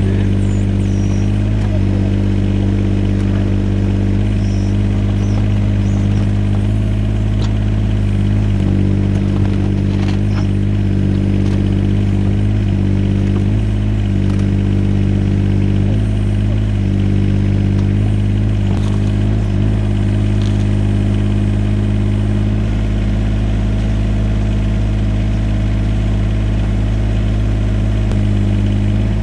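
Yanmar ViO17 mini excavator's diesel engine running steadily, its pitch shifting slightly with the work, with a few faint clicks.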